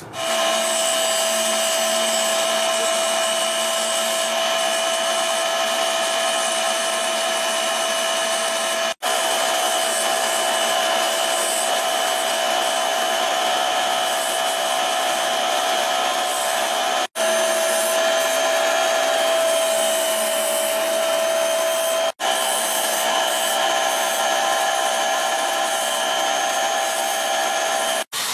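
Electric grinder running at a steady whine while a steel knife blank is ground against its disc. The sound cuts out abruptly for an instant four times and resumes at once.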